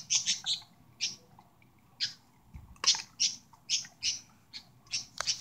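Small birds chirping: short, high chirps repeated a few times each second.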